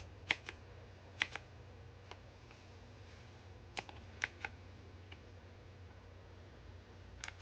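Single keys pressed one at a time on an RK Royal Kludge S108 mechanical keyboard with blue clicky switches: about ten separate clicks, some in quick pairs, spread unevenly with gaps between.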